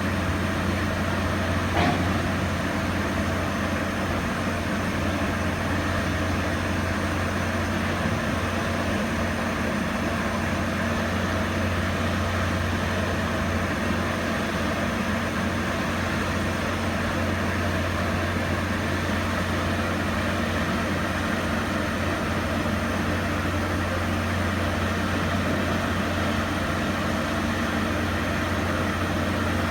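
A steady low mechanical hum from running machinery, unchanging in level and pitch, with one short click about two seconds in.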